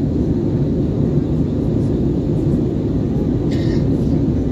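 Steady low drone of an Airbus A320's engines and airflow, heard inside the passenger cabin in flight. A short higher-pitched sound comes in about three and a half seconds in.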